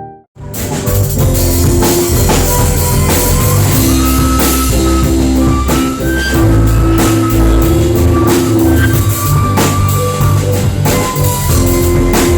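Background music with drums and guitar and a steady beat, kicking in abruptly a moment after a brief gap.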